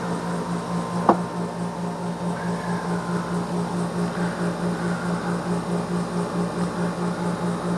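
A steady mechanical hum that pulses evenly about four to five times a second, with a single sharp click about a second in.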